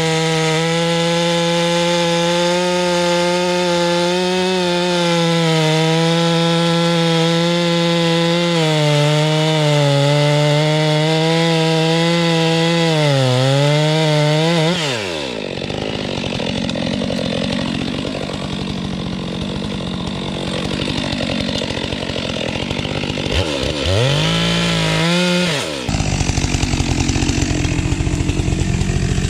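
STIHL MS 462 two-stroke chainsaw cutting into maple, its engine note holding steady under load with small dips. About halfway through the steady note breaks up into a rougher, noisier sound, comes back briefly, then goes rough again.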